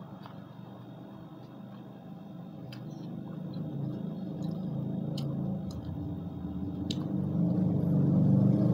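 A low engine hum that grows steadily louder, like a motor vehicle approaching. A few light sharp clicks come from fingers picking food out of a plastic container.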